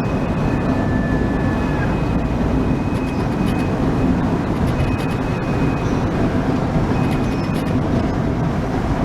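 Motorhome on the move: steady engine and road noise.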